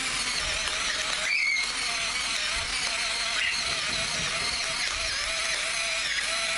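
Electric pepper mill's small motor running steadily as it grinds black pepper, a continuous whir with a slightly wobbling hum.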